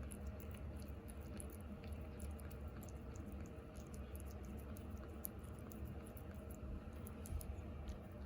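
Cat chewing and licking raw flounder: many small, irregular wet clicks, over a steady low hum.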